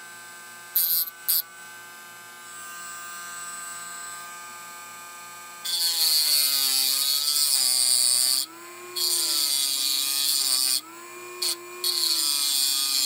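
Dremel Moto-Tool rotary tool with a diamond cutting bit, its motor whining steadily, grinding away the heavy side of a slot-car pancake armature to dynamically balance it. A couple of brief touches about a second in are followed by long stretches of harsh gritty cutting from about six seconds in, with short breaks. The motor's pitch sags and wavers each time the bit bites.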